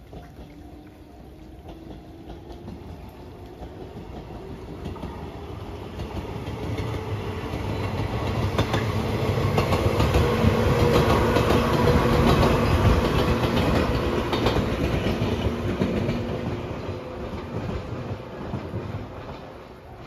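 JR West 115 series electric train passing along the line: its sound builds slowly, peaks with a fast clatter of wheels over the rails as the cars go by, then fades away as it recedes.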